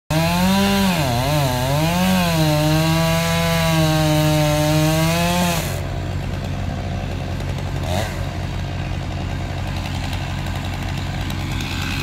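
Two-stroke chainsaw running at high revs as it cuts, its pitch dipping and rising under load. It cuts back after about five and a half seconds, leaving a steady low engine idle.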